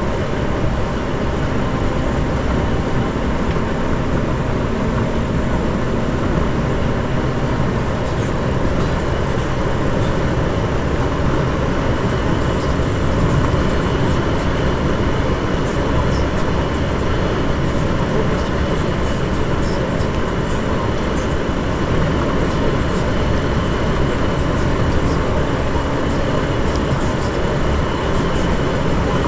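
Steady, even vehicle rumble, strongest in the low end.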